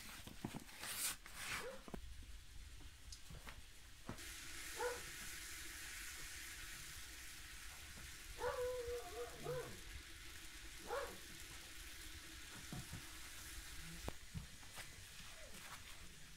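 Cloth towels rustling as they are pulled off a metal basin, then a faint steady hiss with a few brief pitched calls about a third and two thirds of the way through.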